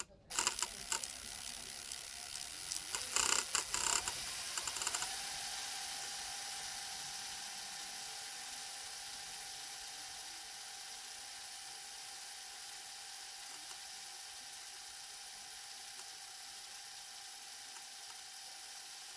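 Drill spinning a ratcheting screwdriver so that its ratchet pawl clicks over the teeth in a fast, continuous buzz, with the drill motor's steady whine settling in about five seconds in.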